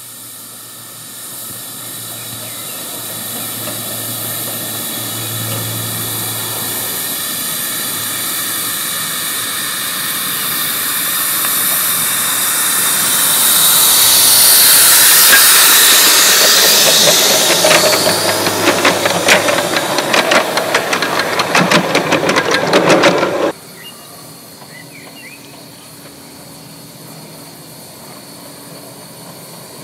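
A 3½-inch-gauge live-steam model locomotive hissing steam, growing louder over about fifteen seconds, then a quick run of sharp exhaust puffs before the sound cuts off abruptly about 23 seconds in.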